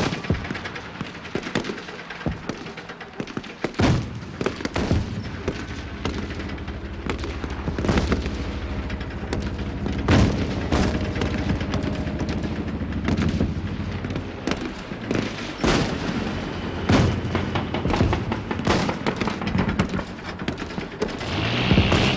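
Battle soundscape of an infantry attack: rapid rifle and machine-gun fire with scattered louder shots and booms over a continuous low rumble.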